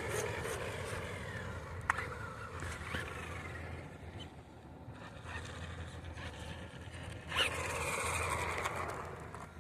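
Radio-controlled car driving. Its motor whine fades away over the first few seconds with a single sharp click, then swells again about seven seconds in as the car comes close.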